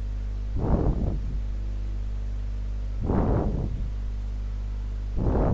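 Steady low electrical hum on the recording. Over it come three short, soft noisy puffs about two and a half seconds apart, the loudest near the start, the middle and the very end.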